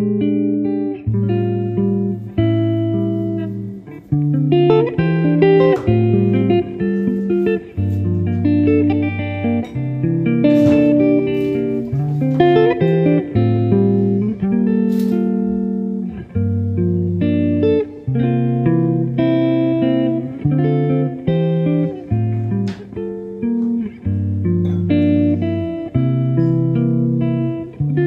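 Background music led by plucked guitar, notes changing about every half second over a bass line.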